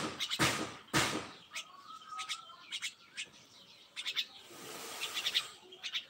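Myna giving short chirps, with a few loud scraping rustles in about the first second.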